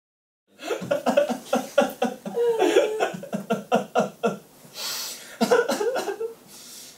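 A man sobbing loudly in rapid, choked gasps, about three a second, with a wavering drawn-out wail partway through and another burst of sobs near the end.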